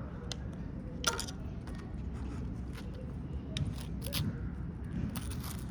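A table knife scraping across toast in a few short strokes, spreading butter and grape jelly, over a low steady room hum.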